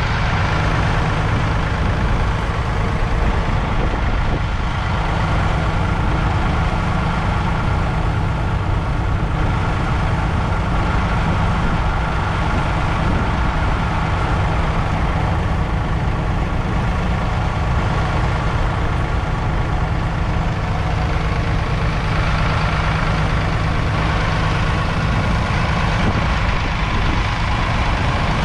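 2.7-litre three-cylinder diesel engine of a 1999 Massey Ferguson 4215 tractor running steadily at a constant speed.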